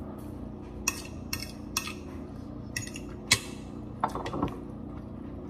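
Fork clinking and scraping on a ceramic dinner plate during eating: a handful of separate sharp clinks, the loudest about three seconds in, over a steady low hum.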